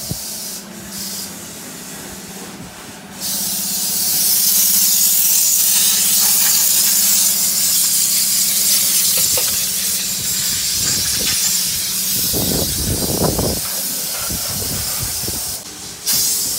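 A steady, loud, high-pitched hiss that grows louder about three seconds in, over a faint steady low hum, with a brief low rumble near the end.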